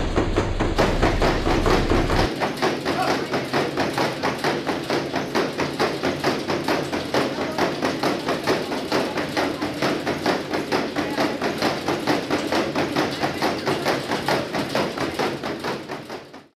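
Horse's hooves striking a treadmill belt in a fast, even rhythm as it moves at speed, fading out near the end.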